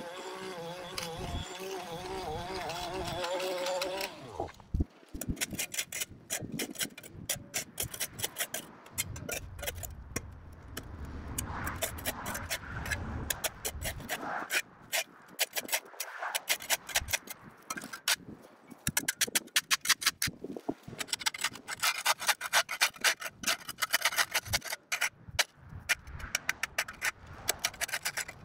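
A long-handled, flat-bladed metal scraper is dragged in repeated scraping strokes over a concrete walkway, clearing overgrown grass and dirt. The strokes come thickest near the end. For the first four seconds a motor drones with a wavering pitch, then stops.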